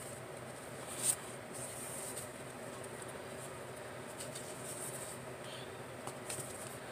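Cardstock greeting cards being handled and flipped open: soft paper rustles, with one brief sharper rustle about a second in, over a faint steady room hum.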